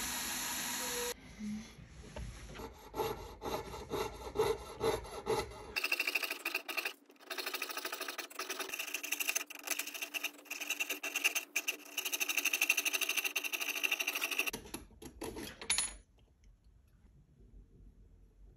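A small electric drill whines steadily for about a second, then a jeweler's saw cuts through a diecast metal toy-car body in quick back-and-forth strokes, cutting out a door. The sawing stops about two seconds before the end, leaving only light handling.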